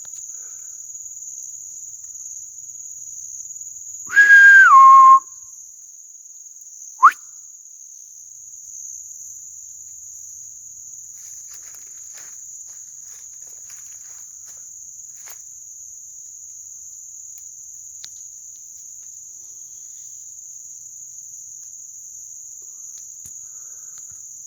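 A loud whistled call about four seconds in: a high note held for about a second, then dropping to a lower note, with a short rising chirp a few seconds later. Under it, a steady high drone of crickets.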